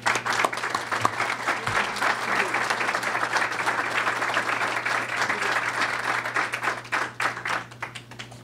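Audience applauding, the clapping starting all at once and thinning out near the end.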